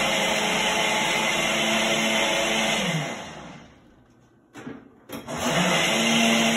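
Countertop blender running its smoothie program on a jar of fruit, juice and yogurt: it runs steadily, spins down and stops about three seconds in, then starts up again after a short pause, the program pulsing the motor on and off.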